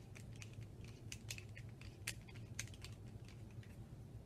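Faint, irregular light clicks and taps from small brass check-stop parts, the cap and stem, being handled and fitted together with a screwdriver.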